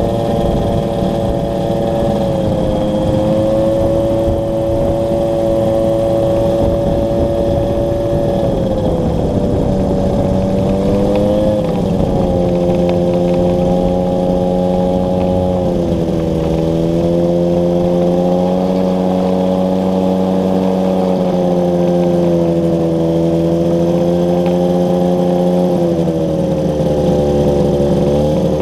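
Northwing Maverick 2 ultralight trike's engine and pusher propeller running at taxi power. The note holds mostly steady, dipping and picking up a few times as the throttle is eased, and rises near the end.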